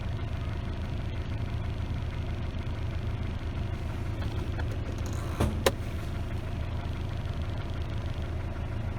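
Isuzu D-Max engine idling steadily with the air-conditioning compressor engaged, its magnetic clutch fed directly by a jumper wire. A couple of sharp clicks about five and a half seconds in.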